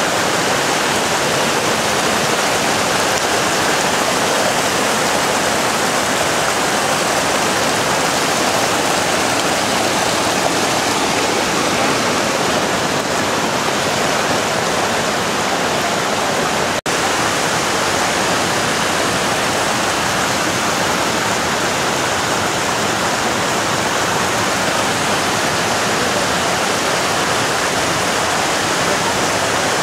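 Mountain river water cascading down a boulder-strewn waterfall: a steady, loud rush of whitewater, broken once by a momentary dropout a little past the middle.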